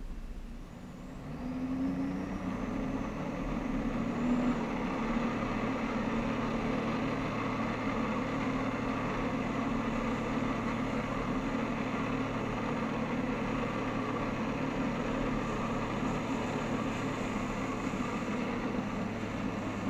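Jet ski engine driving a flyboard through its hose. It revs up about two seconds in, runs steadily at high throttle, and drops off suddenly at the very end.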